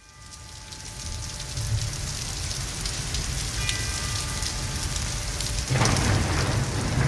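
Rain and thunder ambience fading in from silence, with a faint held chord near the start and again about three and a half seconds in. A deep rumble grows louder near the end.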